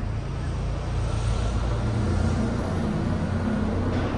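Steady low rumble of a running vehicle, engine drone under road noise.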